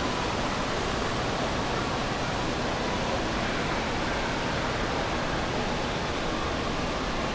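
Steady rushing water noise of an indoor water park, from falling and splashing water.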